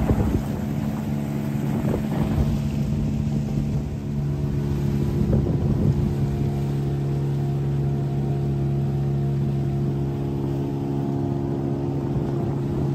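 A small boat's outboard motor running steadily at cruising speed, its note holding even, with more overtones coming in about four seconds in. Gusts of wind on the microphone in the first few seconds.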